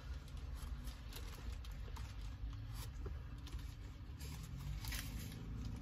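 Faint low hum of a car's cabin, with scattered small clicks and rustles of something being handled.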